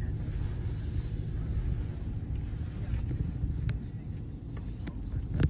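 Steady low rumble of a vehicle moving slowly, heard from inside the cab, with a few faint clicks in the second half.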